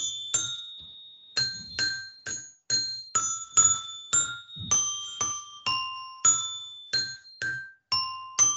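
A simple melody played one note at a time on a small bell-toned instrument. The notes come about two a second, each rings briefly and dies away, with a short pause about a second in.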